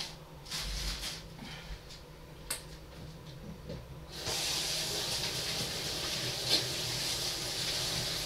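A few light knocks and clicks, then a kitchen tap turned on about four seconds in, with water running steadily into the sink.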